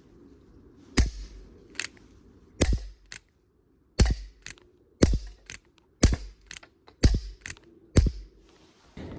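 Air revolver firing seven shots, each a sharp pop with a deep thump, about a second apart; most are followed about half a second later by a fainter sharp click.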